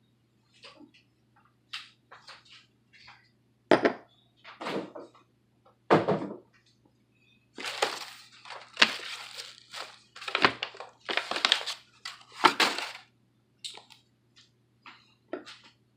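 Packing paper rustling and being crumpled, with several thunks of wrapped kitchen items set down into a moving box.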